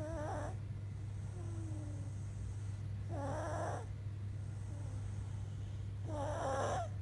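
A child with viral croup makes three harsh, pitched, strained breathing sounds, about three seconds apart: the laboured breathing of croup's inflamed, narrowed upper airway. A steady low hum runs underneath.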